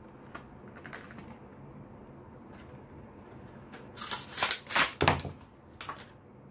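Clear plastic blister packaging of a glue tube being handled: a few light clicks, then a loud cluster of crackling clacks about four seconds in and one more shortly after.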